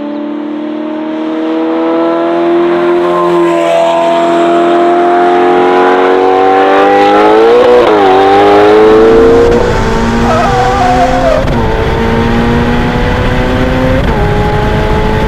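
Ferrari F8's twin-turbo V8 with a Novitec exhaust, heard from inside the cabin, accelerating hard with its pitch climbing steadily. There is a quick shift about eight seconds in, and a couple of seconds later it eases off to a steadier run.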